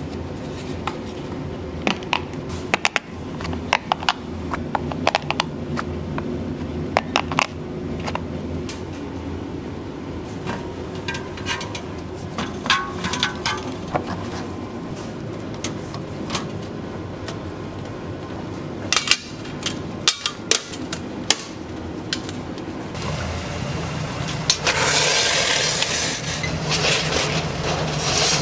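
Restaurant kitchen work: sharp clicks and taps while eggs and a small metal cup are handled, over a steady low hum of kitchen equipment. Near the end a loud rushing hiss comes in for a few seconds.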